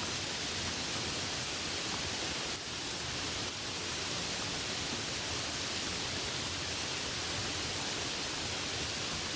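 Steady rain falling outdoors: an even hiss with no single drops standing out.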